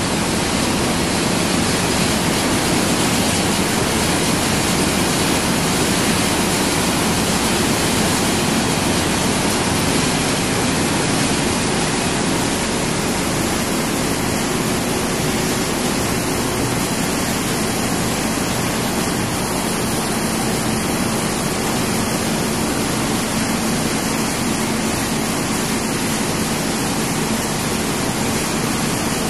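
Battery-recycling production line machinery running, heard as a loud, steady, even rushing noise with a faint low hum underneath.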